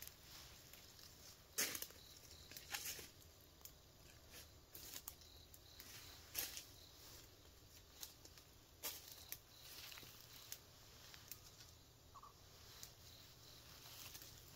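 Quiet, sparse rustling with scattered small sharp snaps, like leaves and stems being handled and broken off by hand.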